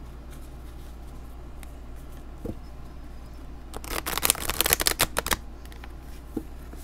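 A deck of matte oracle cards being shuffled by hand: a quiet stretch, then a quick flurry of card flicks about four seconds in, lasting about a second and a half.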